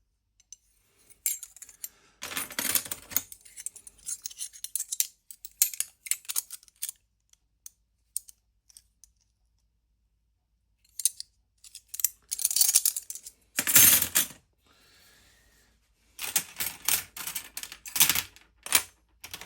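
Vintage watchmaker's case openers clinking and clattering against one another as they are handled, in several bursts of sharp clicks with quiet gaps between, the loudest cluster about two thirds of the way through.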